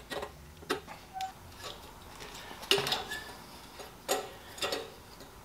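Irregular metallic clicks and clinks, about eight of them, from pliers and a wrench working loose the fitting of an air compressor's pressure regulator, which is then turned off its threads by hand.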